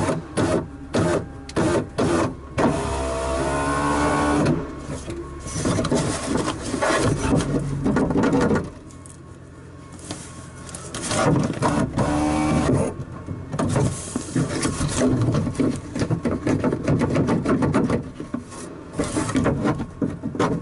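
Mechanical work inside a car door: rapid clicking and rattling of parts and tools, with a steady motor-like whir twice.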